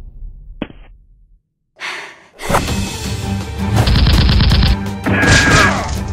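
Action-film background music cuts in after a brief silence, with dubbed gunfire sound effects over it: two short bursts of rapid automatic fire, about four and five seconds in.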